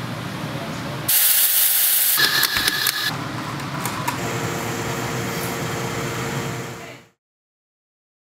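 Espresso machine sounds: a steam wand hissing loudly for about two seconds, then a steadier machine hum with a low drone that cuts off suddenly about seven seconds in.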